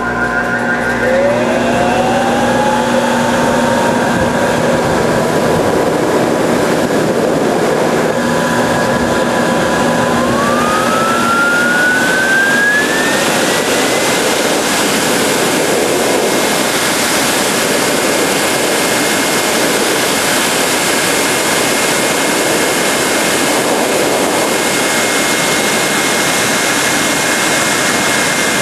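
Grooming blower running at low speed, a loud rush of air with a motor whine that rises as it spins up in the first two seconds. About ten seconds in, the whine climbs higher over a few seconds as the blower speeds up, then holds steady.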